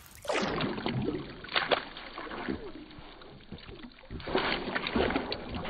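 Ducks splashing and sloshing in a galvanized metal tub of water while they bathe, in uneven bursts, with a splash about one and a half seconds in and a busier stretch of splashing from about four seconds on.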